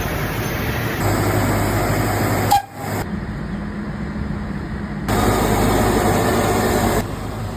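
Steady vehicle and engine noise over several short clips joined together, the sound changing abruptly at each cut, with a steady low engine hum in some of them.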